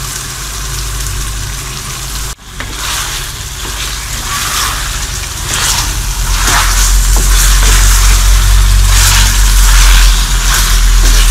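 Chicken pieces sizzling on high heat in an aluminium pot while they give off their water, stirred with a wooden spoon in repeated scraping strokes. A low hum grows louder about halfway through.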